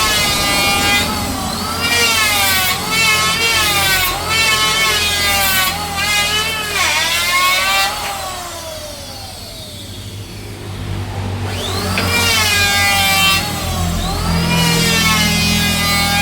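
Electric power tool cutting wood, its motor whine sagging in pitch under load and recovering again and again. The whine drops out for a few seconds in the middle, leaving a duller noise, then returns.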